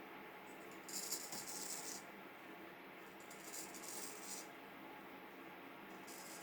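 Vintage Norton straight razor scraping through a week-old beard in three short strokes, each a dry, crackly rasp lasting about a second.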